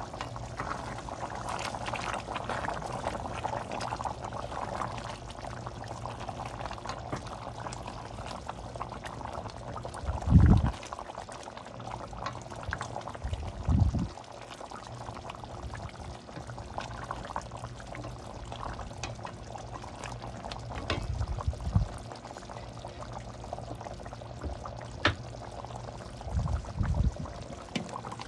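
Cooking liquid in a pan bubbling steadily as it simmers. A few low thumps come and go, the loudest about a third of the way in.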